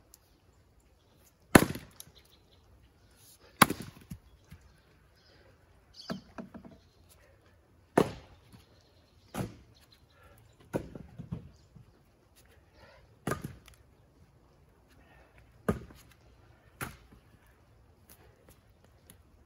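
Axe splitting firewood rounds: about nine sharp chopping strikes spaced a second or two apart, some followed by smaller knocks.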